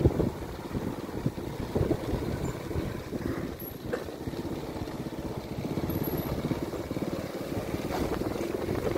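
Wind buffeting the microphone on a moving motorbike, with the small engine running steadily underneath.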